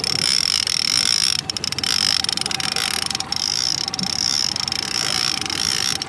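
Trolling reel being cranked steadily as a hooked king salmon is reeled in, with a boat motor running underneath.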